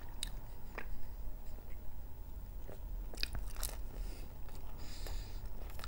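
A person chewing fried food close to a clip-on microphone, with scattered crunches and wet mouth clicks.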